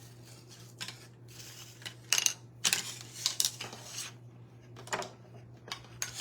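Irregular light clicks and clacks of small hard garland pieces knocking together as they are handled and slid along, with a steady low hum underneath.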